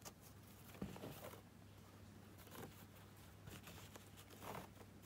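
Near silence: a low steady hum, with faint soft rustles about a second in and again near the end from the crocheted hat and its yarn strap being handled.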